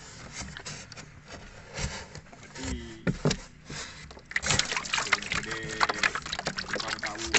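Live snakehead fish shifting and flapping in shallow water in a foam box, with wet slaps and splashes that grow busier and louder from about halfway through, as a hand reaches in and handles them.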